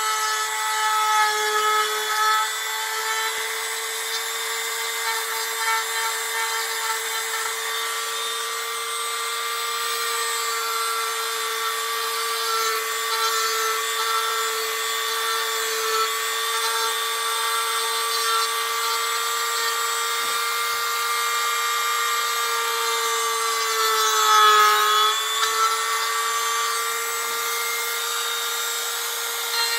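Dremel rotary tool running at a steady high whine as its bit grinds into soft wood; once near the end the pitch sags briefly as the bit bites harder, then recovers.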